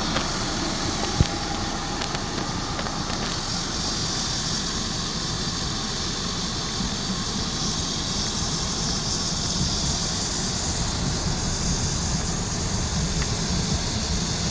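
Hummer H3 engine idling steadily with a constant hiss over it, as it runs during an air-conditioning refrigerant recharge. A single sharp click about a second in.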